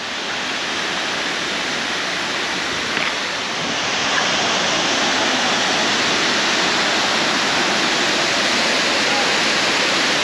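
Waterfall: a steady rush of falling water, like white noise, growing a little louder about four seconds in.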